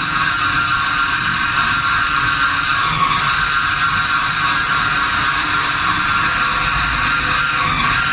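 Automatic CNC metal band saw cutting through a bundle of metal bars: a steady high whine from the blade over a low machine hum.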